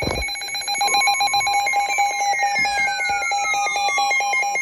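NOAA Weather Radio severe-thunderstorm warning alert: an electronic alarm beeping rapidly and evenly at one pitch, with a steady attention tone joining about a second in. Thin tones sweep downward in pitch through the middle, and there is a click at the very start.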